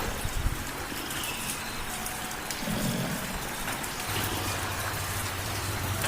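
Light rain falling steadily, with a cat's low purring underneath that comes up more clearly about two-thirds of the way in.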